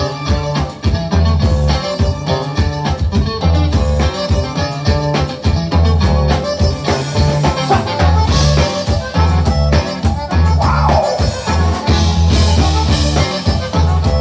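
Live conjunto band playing an instrumental passage: button accordion lead over guitars, electric bass and drum kit, with a steady pulsing bass line.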